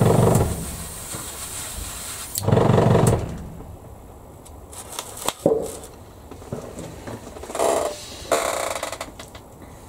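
Gravity-feed airbrush spraying paint with a steady hiss of air, which cuts off about two and a half seconds in. Two loud low-pitched sounds come at the start and just after the hiss stops, then clicks of handling and a brief further hiss near the end.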